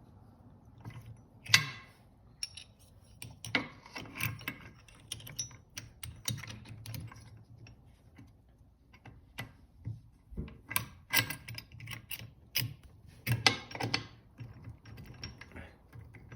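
Metal transmission parts of a Suzuki LT500R bottom end clicking and clinking as they are handled and fitted into the crankcase, in scattered bursts with one sharp clink about a second and a half in.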